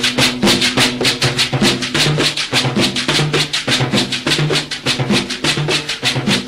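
Cumbia music: a quick, steady percussion beat over a repeating bass line.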